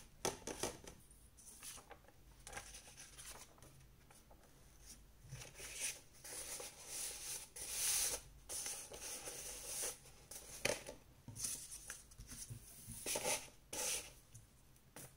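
Craft paper being handled and worked by hand: irregular rustling and crinkling in short bursts, with a few louder crisp sounds about two-thirds of the way through and near the end.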